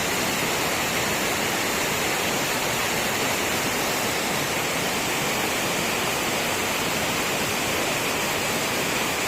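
Rushing water, a steady, even noise that does not change.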